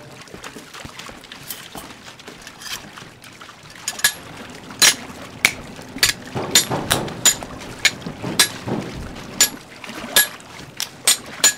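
Sword fight clashes: a quick, uneven series of sharp ringing clangs, about a dozen, starting about four seconds in, over a steady background noise.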